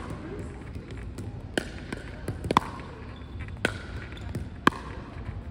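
Pickleball paddles hitting a plastic pickleball back and forth in a drill rally: sharp pops about once a second, some louder than others, each with a short ring.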